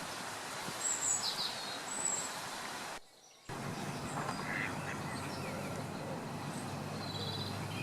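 Outdoor birdsong: small birds giving short high chirps and calls, with ducks quacking, over a steady low background noise. The sound cuts out for about half a second about three seconds in.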